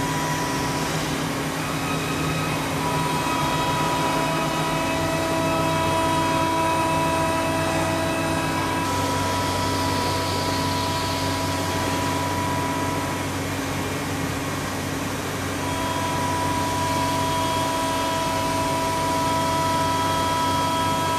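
FPT Industrie Dinomax five-axis milling machine cutting gear teeth with an end mill: a steady machining noise with high whining tones over it. The whine fades out around the middle and comes back a few seconds later.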